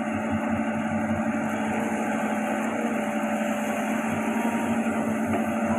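Hitachi Zaxis 110 excavator's diesel engine running at a steady speed, with a constant drone.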